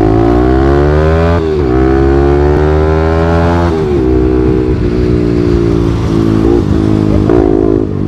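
Single-cylinder sport motorcycle engine accelerating hard through the gears. The revs climb, drop at a gear change about a second and a half in, climb again and drop at the next shift near the four-second mark. It then runs at a fairly steady speed with small throttle blips.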